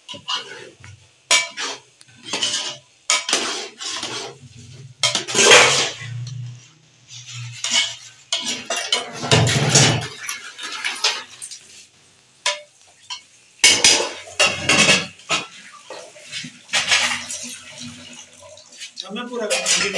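Metal spoon stirring and scraping inside a steel cooking pot, with irregular clinks of utensils against the pots.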